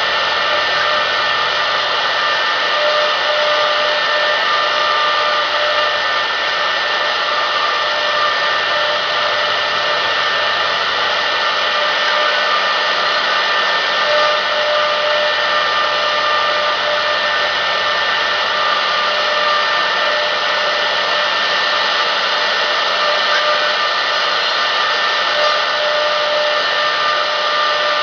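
Spindle of a 1325 CNC wood router running steadily, a continuous whine over a hiss with a few fixed pitches.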